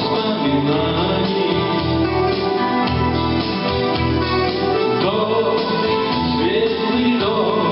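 Instrumental break in a song: a melody line that wavers in pitch over held chords and bass notes that change about once a second.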